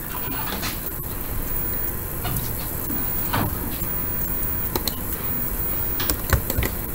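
A few scattered computer mouse clicks over steady microphone hiss and low room rumble, as control points are picked and dragged.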